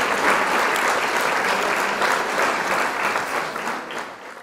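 Applause from many people clapping, fading out near the end.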